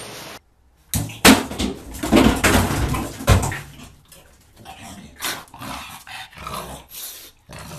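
A pug growling and barking in a small bathroom, loudest in the first few seconds and softer after about four seconds.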